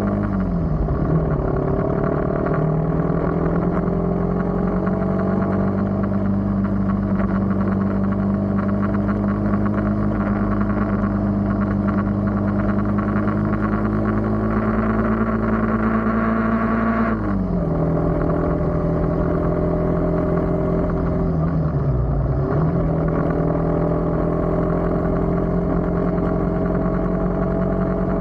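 A vehicle engine running on the move, its pitch climbing slowly as it gathers speed. The pitch falls sharply about 17 seconds in, then dips once more around 22 seconds and climbs again, over steady road noise.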